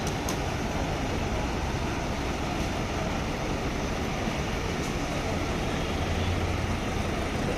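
Steady low rumble of idling bus diesel engines, with an even hiss over it.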